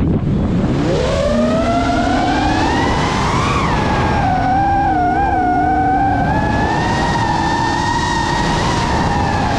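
FPV quadcopter's brushless motors whining with the throttle: the pitch starts low, climbs over the first few seconds, wavers briefly in the middle, then holds steady, over a rushing noise from the propellers and wind.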